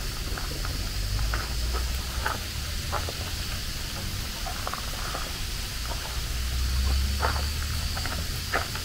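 Outdoor ambience: a steady high-pitched insect drone over a low rumble that swells about seven seconds in, with scattered light ticks and crunches.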